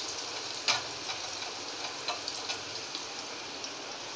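Cornflour-coated potato fries deep-frying in hot oil in a steel kadhai: a steady sizzle with scattered crackling pops, and one sharp click less than a second in.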